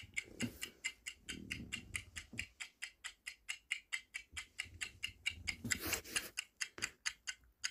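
Clock-ticking countdown-timer sound effect: a quick, even tick, about five a second, marking the time given to answer a quiz question.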